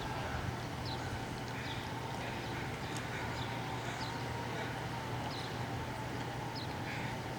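Short, high chirps of small birds, repeating about once or twice a second, over a steady low hum.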